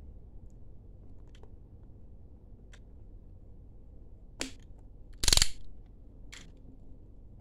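A utility knife blade slitting the seal sticker on a cardboard smartphone box, with a few faint scratches and clicks, then a short, sharp clatter on the wooden tabletop a little after five seconds in, followed by one more click.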